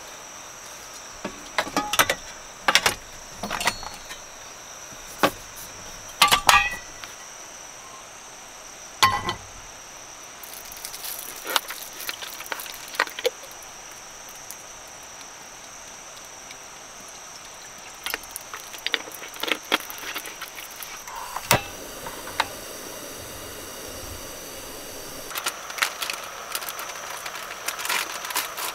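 Sharp metallic clicks and clunks as a portable gas camp stove is set up, a gas canister fitted to it and a frying pan set on top, with a steady high insect buzz behind. A few more handling clicks follow, and a soft steady hiss comes in near the end.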